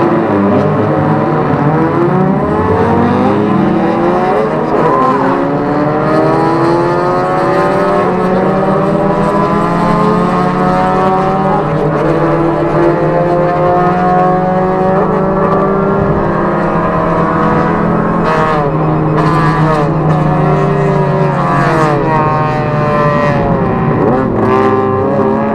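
Inside the cabin of a ZVW30 Toyota Prius at racing speed: its 1.8-litre 2ZR-FXE four-cylinder engine runs hard as a steady drone, under whining tones that climb over the first few seconds, hold, then fall away and climb again near the end.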